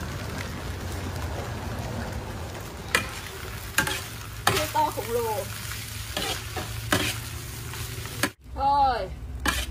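Oversized metal spatula stirring and scraping fried rice around a wok on the fire, over a steady sizzle, with several sharp scrapes and knocks of metal on metal.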